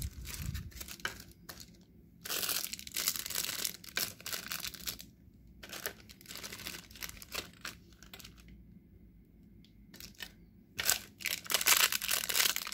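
Clear plastic accessory bags crinkling and rustling as they are handled, in irregular bursts, quieter for a couple of seconds past the middle and loudest near the end.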